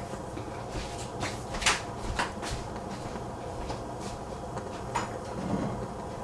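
Popcorn kernels heating in oil in a lidded stainless steel pan on a gas stove: scattered sharp ticks and light crackles, a few close together, over a steady background hum, while the kernels have not yet started to pop.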